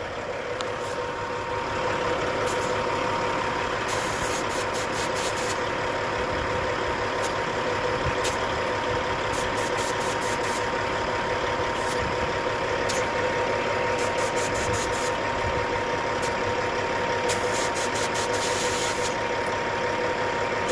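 Semi truck's diesel engine idling steadily, with a steady hum and several short runs of rapid high clicks.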